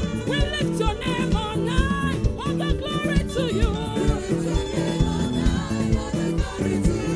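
Upbeat live gospel praise music: a church choir singing over a band with a steady drum beat.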